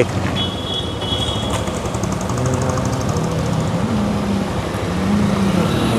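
A motor vehicle engine idling steadily at close range amid street traffic noise, with a brief high tone about half a second in.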